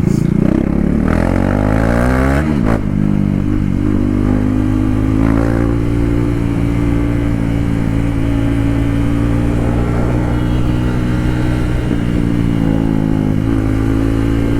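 KTM Duke 390 single-cylinder engine with the stock silencer removed. It revs up under acceleration with rising pitch, drops at a gear change about two and a half seconds in, then runs steadily at cruising speed.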